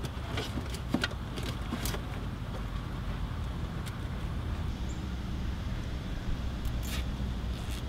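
Scattered light clicks and rustles of cables and plastic being handled under a car dashboard, over a steady low rumble.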